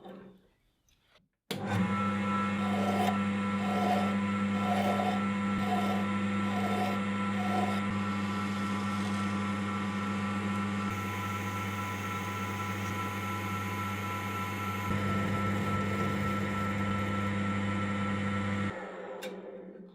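An electric workshop machine is switched on and runs at a steady hum for about seventeen seconds, then is switched off and winds down near the end. There are faint, evenly spaced soft blips in the first few seconds of running.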